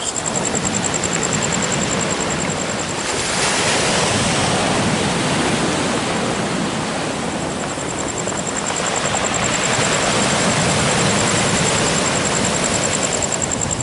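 Ocean surf washing onto the shore, a steady rush that swells twice, about three seconds in and again about nine seconds in. A thin, high pulsing tone sits above it.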